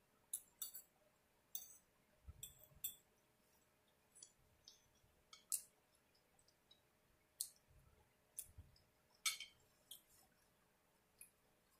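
Faint eating sounds: scattered sharp clicks from chewing shrimp tacos and a metal fork knocking against the plate, at irregular intervals, with a couple of soft low thumps.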